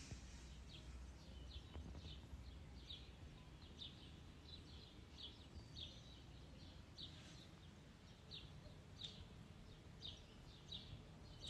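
Faint bird chirps, short and high, repeated about one or two times a second, over a low steady rumble.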